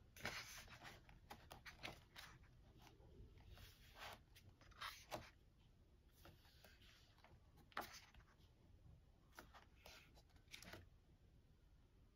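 Faint paper rustling and brushing as the pages of a K-pop album photobook are turned by hand, in scattered short strokes.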